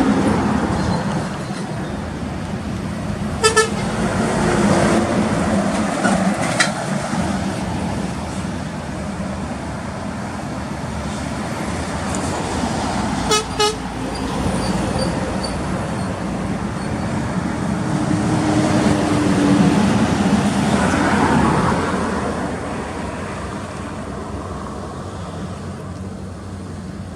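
Trucks on the road with a steady traffic drone, sounding their horns: long held horn tones at the start and again after about eighteen seconds, with short sharp blasts in between.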